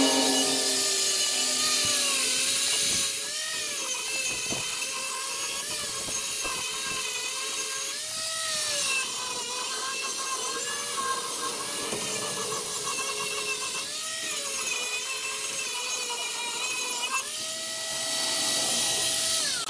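Angle grinder grinding rusty steel. The motor's whine dips in pitch again and again as the disc bears down on the metal and recovers between passes, over a loud grinding hiss. Near the end it runs free with a steady, higher whine.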